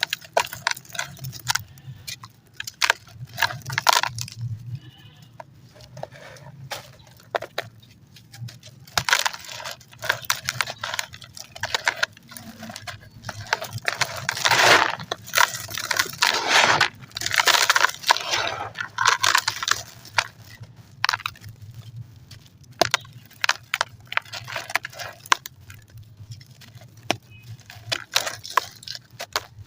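Chunks of concrete and ash crumbled by hand: a run of sharp crunches and cracks, thickening into a longer stretch of gritty crumbling about halfway through.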